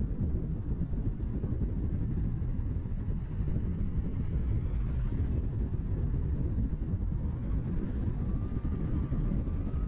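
Car driving along a road: steady, low road and wind noise picked up by a camera mounted outside on the car. A faint wavering tone joins near the end.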